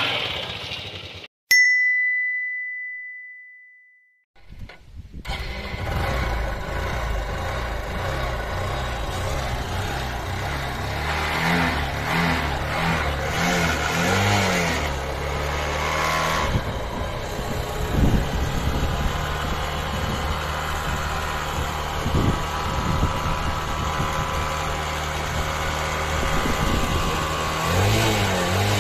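A single ding rings out and fades, and after a short silence a motorcycle engine idles steadily. Its exhaust is blowing up a balloon fitted over the tailpipe, and the revs rise and fall a few times.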